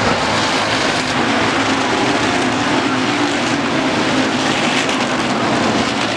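Hobby stock race cars' engines running at racing speed around an oval track, a loud, steady drone.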